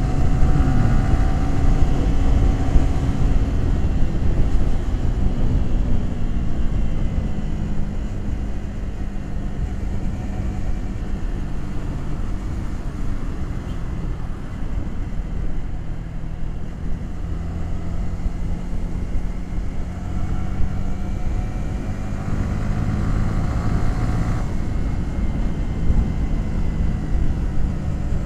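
Yamaha R15 V3's 155 cc single-cylinder engine running under way, its exhaust note easing off slightly in the first few seconds, holding steady while cruising, then picking up briefly near the end. Heavy wind rumble on the helmet-mounted action cam runs underneath.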